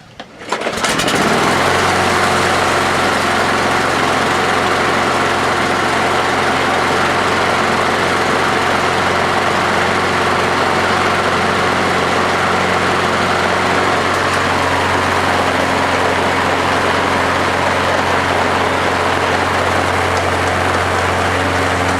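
Craftsman 6.75-horsepower walk-behind lawnmower engine catching on a pull start about a second in, revving up briefly, then running steadily.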